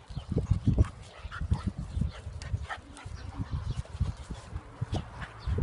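Dogs making short, irregular sounds close by, with soft low thuds running through.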